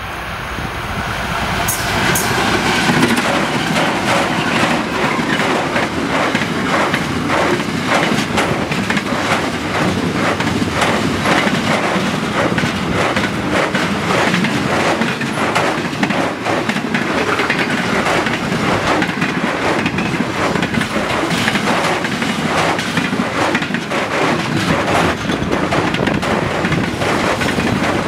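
A long diesel-hauled intermodal freight train, led by an NR class diesel-electric locomotive, approaches and passes close by. It grows louder over the first few seconds, then the container wagons roll past with a continuous rhythmic clickety-clack of wheels on the rails.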